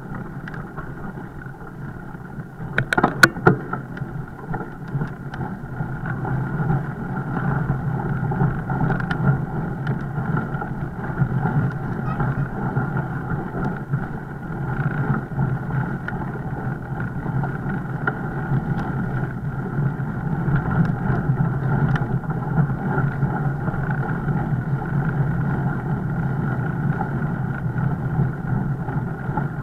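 Steady rumbling ride noise of a fat bike under way, with a few sharp knocks close together about three seconds in.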